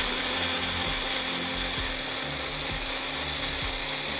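Electric mixer-grinder blender running steadily, its blade whirring through dates, rolled oats and almond milk in a small plastic jar to make a smoothie.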